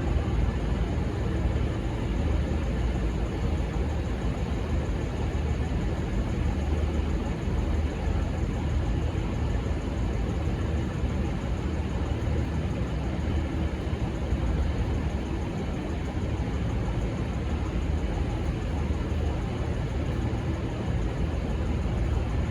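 Steady low rumble of a diesel train running, with no horn sounding.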